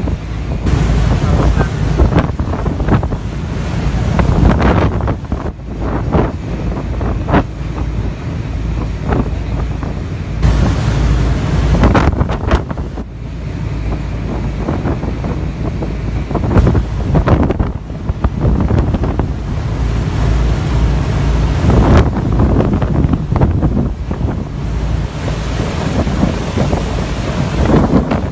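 Strong storm wind battering the microphone in irregular gusts, over rough, wind-whipped water: the gust front of an approaching storm.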